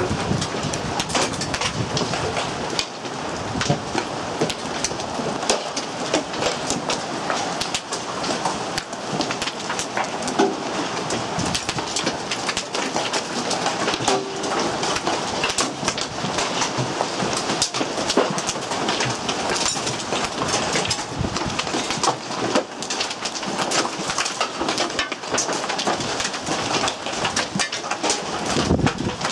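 Hailstorm with quarter-size hailstones and rain pelting down, a dense, steady clatter of countless small impacts over the hiss of heavy rain.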